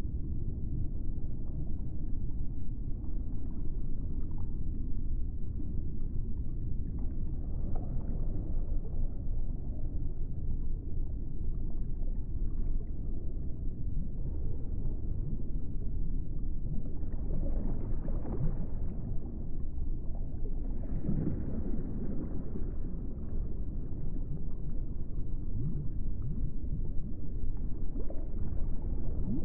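Low, steady rumbling ambient drone of a laid-over soundtrack, swelling twice with a brighter hiss a little past the middle.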